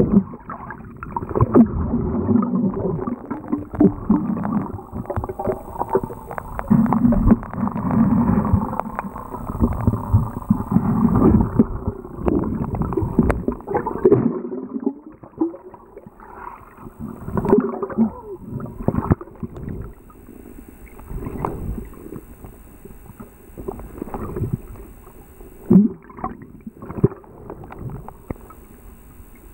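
Muffled water sloshing and bubbling heard through a camera held underwater while swimming in a river, with irregular knocks and thumps. It is busier and louder for the first half, then settles to a quieter underwater hush with scattered knocks.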